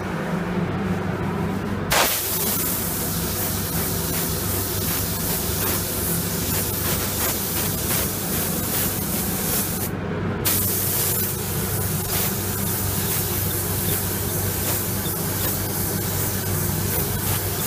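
DeVilbiss SRi mini spray gun spraying base coat: a steady hiss of air and atomised paint that starts about two seconds in, cuts out briefly around ten seconds in as the trigger is released, then starts again. A steady low hum runs underneath throughout.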